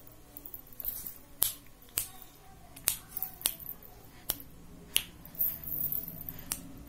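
A series of sharp tongue clicks, about seven, spaced unevenly, with a soft low sound near the end.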